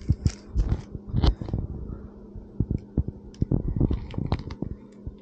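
Chewing a mouthful of Dutch crunch sandwich close to the microphone: irregular crackles and crunches of the crusty bread.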